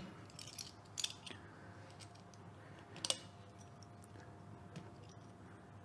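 A few faint clicks and light metal handling sounds as a metal spit clamp is worked through a piglet carcass onto the rotisserie spit, the sharpest click about three seconds in.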